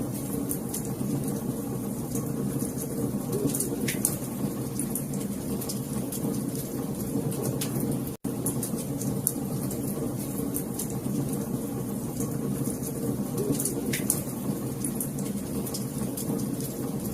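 Wood fire crackling: a steady low rush of burning with scattered sharp pops and snaps, the sound cutting out for an instant about eight seconds in.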